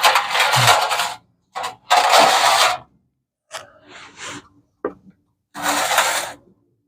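Ratchet wrench being cranked in three bursts of about a second each, with a few lighter metal sounds between them.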